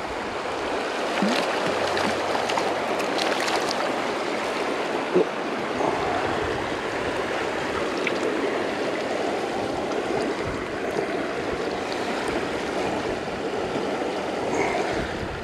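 Small creek running steadily over a shallow riffle, with a few short splashes and knocks as a brown trout is played and scooped into a landing net.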